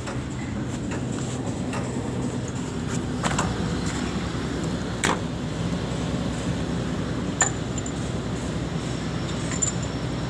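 Excavator's diesel engine running at idle, a steady low hum, with three sharp clicks or knocks spread through it.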